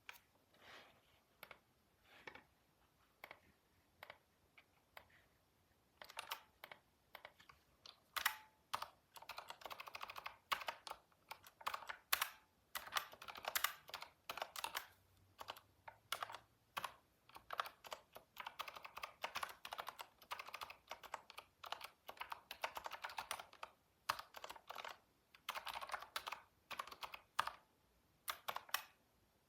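Typing on a computer keyboard. A few scattered keystrokes come first, then from about six seconds in fast runs of typing follow one another with short pauses.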